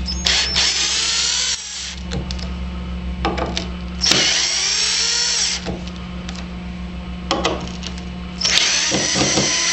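Cordless drill-driver backing ballistic nail screws out of the wood, in three short whining runs of about a second and a half each, over a steady low hum.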